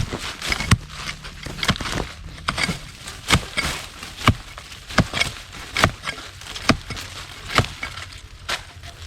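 A digging tool striking into soil and roots about once a second, working a plant's root out of the ground.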